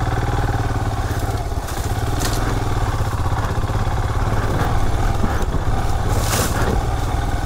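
Royal Enfield Himalayan's single-cylinder engine running steadily as the motorcycle rides along a dirt trail, with a brief burst of hiss about six seconds in.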